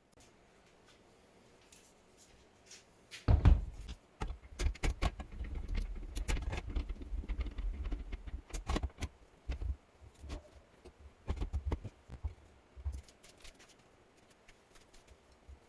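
Irregular clicks, clatters and knocks of hard objects being handled, with a loud thud about three seconds in and a busy run of knocking for several seconds after it.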